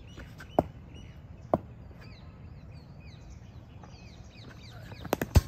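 Birds chirping throughout, with two single sharp knocks early on and a quick cluster of sharp cracks near the end, the last one the loudest: a cricket ball bouncing on the concrete practice pitch and being struck by the bat.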